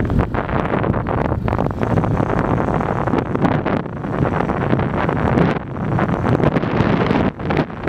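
Wind buffeting the microphone, loud and uneven, over the steady rumble of a car driving along an asphalt road.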